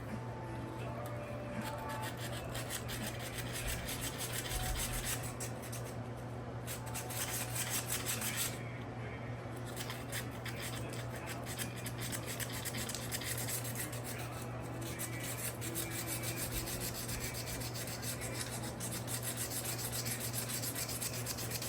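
Fine 400-grit sandpaper rubbed back and forth in quick short strokes inside a pocket knife's frame, scrubbing tarnish off the copper liners. The rubbing stops briefly a few times and starts again.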